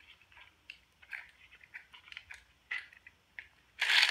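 Small plastic clicks and scrapes from a Beyblade Burst Sparking string launcher being handled and readied. Near the end comes one loud, short rasp of its cord being pulled, and the launcher jams instead of releasing the top.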